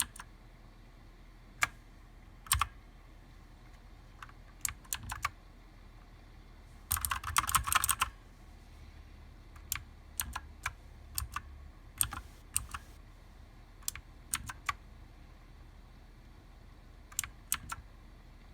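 Keys of a Redragon Visnu mechanical keyboard with blue switches clicking as they are pressed, in single presses and short groups, with a quick flurry of rapid keystrokes about seven seconds in.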